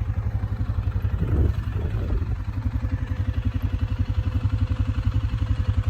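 Small engine running steadily at low speed with a rapid, even putter, with a brief louder clatter about a second and a half in.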